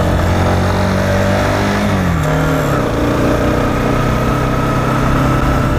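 Honda CBR 125's small single-cylinder engine running close by, a steady engine note whose pitch drops about two seconds in and then holds.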